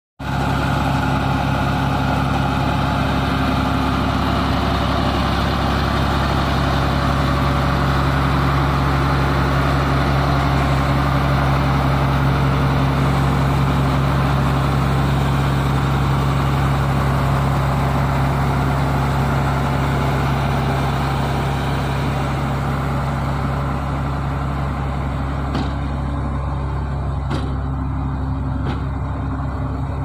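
Heavy diesel engine running steadily at one constant speed, a deep even drone. A few short clicks near the end.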